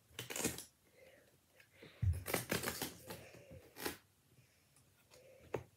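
Hands sorting through small cardboard team cards, with bursts of rustling and clicking and a thump about two seconds in.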